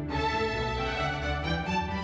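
Instrumental background music with long held notes.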